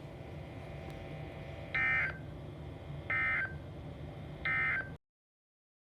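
Three short bursts of Emergency Alert System (SAME) digital data tones, about 1.3 seconds apart: the end-of-message code that closes a severe thunderstorm warning. A low steady hum runs underneath, and the audio cuts off about five seconds in.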